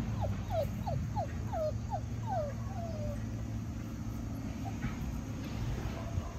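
A run of about eight short animal calls, each note falling in pitch, about three a second, stopping about three seconds in, over a steady low hum.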